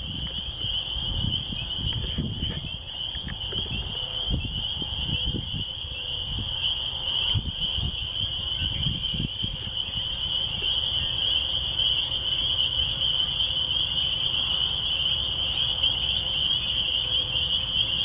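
A dense chorus of spring peepers, many high shrill peeps merging into one continuous ringing band. Uneven low rumbling sits underneath, heaviest in the first half.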